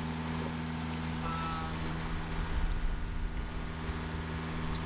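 Steady low drone aboard a Gulfstar 41 sailboat under way: a constant hum over a low rumble, with a brief faint tone about a second and a half in.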